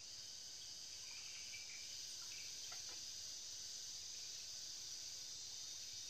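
Steady high-pitched drone of an insect chorus, with a few faint short chirps about one to three seconds in.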